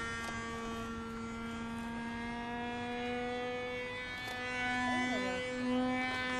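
RC model Messerschmitt Me 163 Komet's motor running at a steady pitch while the plane flies overhead, a constant whine with many overtones.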